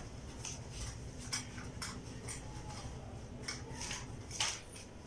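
Light, irregular clicks and rustles of curtain hooks and fabric being worked on a curtain rail as curtains are hung, the sharpest about four seconds in.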